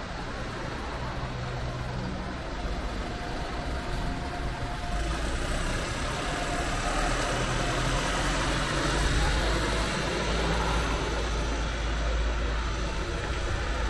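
A double-decker bus's engine idling at a stop amid street traffic, growing louder from about five seconds in as it is passed close by.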